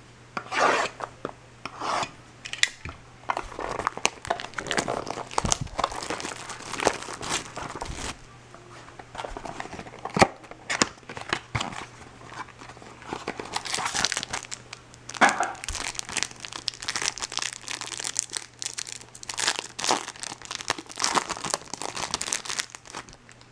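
A trading-card box and its card-pack wrappers being torn open and crumpled by hand: irregular tearing and crinkling rustles with a few sharp snaps. A faint steady low hum runs underneath.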